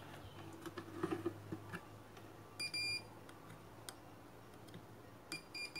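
Multimeter continuity buzzer beeping as the probes touch points on the amplifier board, the beep signalling a connection to ground. There is one high beep about two and a half seconds in, then three quick beeps near the end, with faint clicks of the probe tips between.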